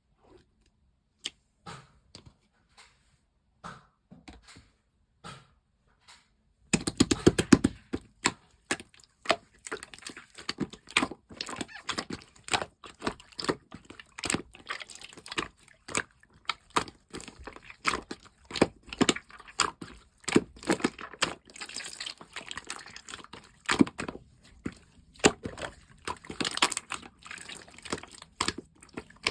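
Green marbled slime being handled by hand: a few scattered soft clicks at first, then from about a quarter of the way in a dense, continuous run of sharp clicks and crackles as it is pressed, folded and stretched.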